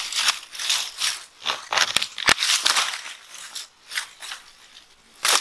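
Long-handled loppers cutting sugar cane stalks into pieces, with dry cane leaves crackling and rustling as the stalks are handled, and two sharp snaps a little after two seconds in.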